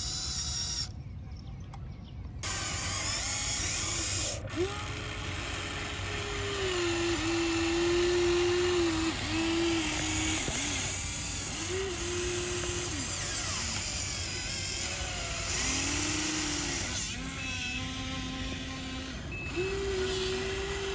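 Small electric motors of a radio-controlled toy excavator whining in short runs, the pitch stepping up and down and gliding as they start and stop, over steady background noise.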